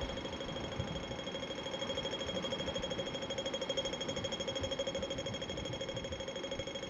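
A steady electronic beeping, pulsing rapidly without a break, over gusts of wind buffeting the microphone.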